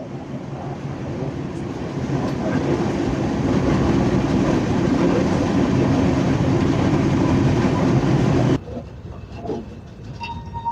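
Train wheels running on the rails close by: a steady rushing rumble with rail clatter. It builds over the first two or three seconds and cuts off abruptly about eight and a half seconds in.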